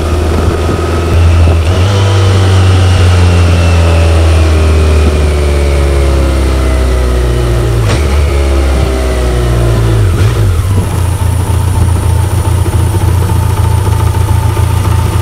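BMW K1100LT's inline-four engine running: revved about a second in, then slowly falling in pitch over several seconds. It is revved again a little past the middle and then settles to a steady idle.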